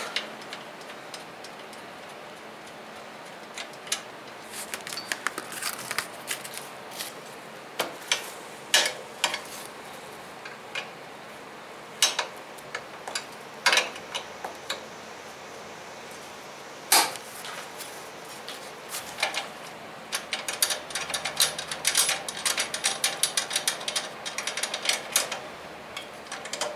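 Hand tools working the bolts of the shipping brackets under a portable generator's frame: scattered metal clicks and clinks, turning into a quick run of small clicks over the last several seconds.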